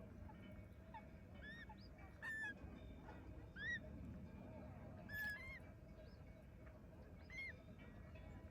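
A bird calling over and over in short, arching calls, roughly one every second or two, over a low outdoor rumble.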